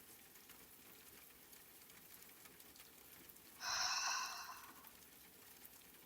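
A breathy sigh exhaled through the open mouth without voice, about a second long a little past halfway and fading away, over a faint steady hiss of rain.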